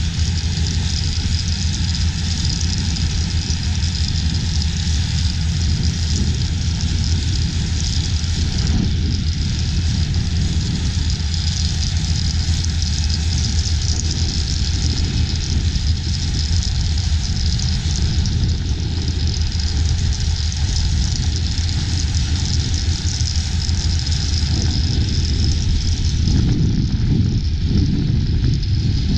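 Large engine running at a steady speed, a continuous low drone that holds evenly throughout.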